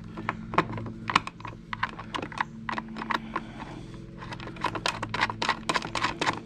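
Quick irregular clicks and taps of metal bolts and nuts being fitted by hand through a plastic cart handle bracket, a few a second, over a low steady hum.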